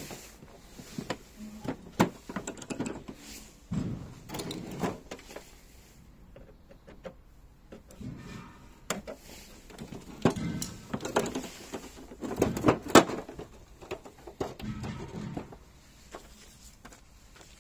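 Bosch L-Boxx plastic tool case being handled and opened: an irregular run of plastic clicks and knocks from its latches and lid, with rustling of paper manuals and plastic packaging.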